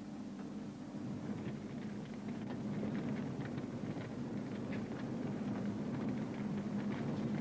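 Steady roar with scattered crackling from coal gas burning at the mouths of a gasworks' coal retorts, growing a little louder. Music fades out in the first second or so.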